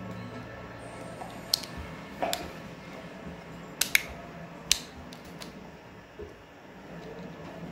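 Plastic Lego-compatible bricks clicking and tapping as they are handled and fitted together: several sharp clicks, two close together about four seconds in, over a faint steady hum.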